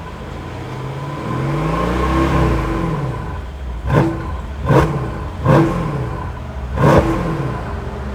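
Mercedes-AMG S63's twin-turbo V8 exhaust revved: one slow rise and fall in engine speed, then four quick throttle blips, each a sharp bark that falls away.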